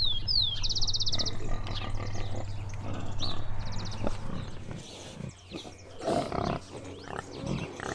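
Pigs grunting and snuffling, the loudest about six seconds in, with birds chirping and trilling in the first few seconds over a low steady hum that fades out about halfway.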